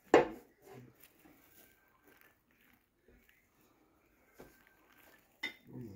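A sharp knock at the start, then faint scattered taps and clicks of ceramic tile pieces being handled at a manual tile cutter.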